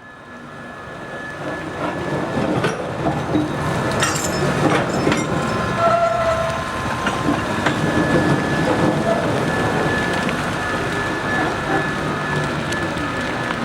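Steam-hauled spoil train behind a JS-class 2-8-2 locomotive rolling along the track: wheels and wagons clattering and clicking over the rails, with a thin steady high squeal. It grows louder over the first couple of seconds, then holds steady.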